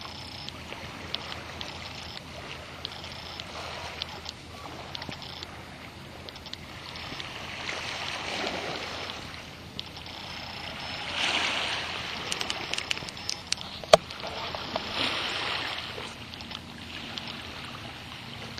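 Small waves lapping at the lakeshore, swelling and easing every few seconds. A cluster of sharp clicks comes in the second half, one much louder than the rest.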